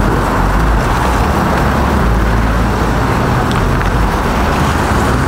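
Lifted Chevy Silverado pickup driving slowly across a lot, its engine giving a steady low rumble along with tire and road noise.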